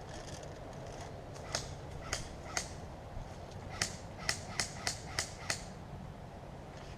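Airsoft guns firing: nine sharp pops, three spaced out, then a quicker run of six.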